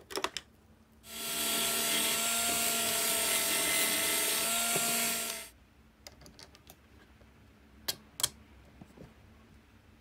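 Electric drill running steadily for about four and a half seconds, boring through a PVC pipe fitting. Sharp clicks of the plastic parts being handled come just before it and twice near the end.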